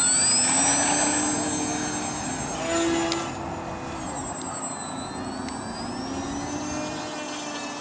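Electric motor and propeller of a ParkZone VisionAire RC plane whining at takeoff. The pitch rises sharply at the start, then the sound grows fainter as the plane climbs away. About halfway through, the pitch dips and rises again as the throttle is worked.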